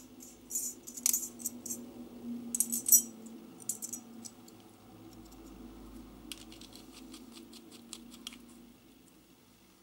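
Small metallic clicks and taps of a Gillette Tech safety razor and its double-edge blade being handled and put together, densest in the first few seconds, with a quick run of clicks near the end. A steady low hum sits underneath.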